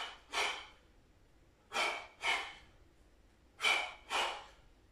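A man's short, sharp forced exhalations through the mouth, one with each punch of a seated boxing ab exercise: three pairs of breaths, about two seconds apart.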